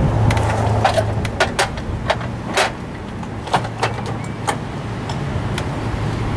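Irregular sharp clicks and knocks, about a dozen, over a steady low hum.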